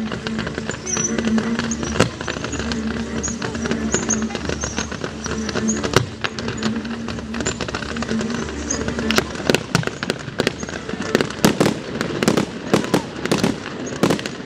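Fireworks display: a few sharp bangs early on, then a dense run of rapid cracks and bangs in the second half as shells and comets go off.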